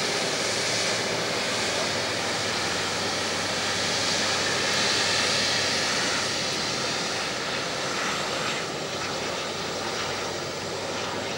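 Jet engines of an Airbus A330-300 airliner running as it taxis and turns on the runway: a steady engine noise that is loudest about halfway through and eases a little near the end.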